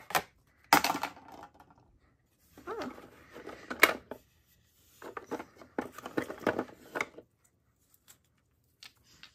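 Hollow plastic toy fruit knocking and clattering against itself and the wooden bin as a hand rummages through it. It comes as a sharp click about a second in, then a few short clusters of rattling clicks with quiet gaps between.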